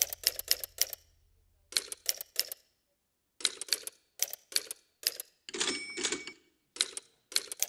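Sampled typewriter keystrokes played back through electronics in quick runs of sharp clacks, with short pauses between runs and a brief ringing tone under the clicks near six seconds in.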